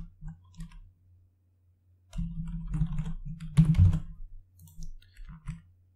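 Typing on a computer keyboard: a few scattered keystrokes, then a quick run of keystrokes about two seconds in, then more scattered taps near the end.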